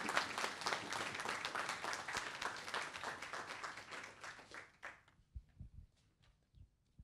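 Audience applauding, the clapping thinning out and dying away about five seconds in, followed by a few faint knocks.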